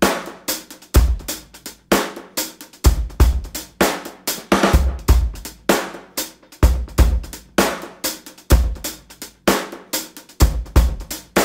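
Background music: a steady drum-kit beat of kick drum, snare and hi-hat, with a deep kick about every two seconds.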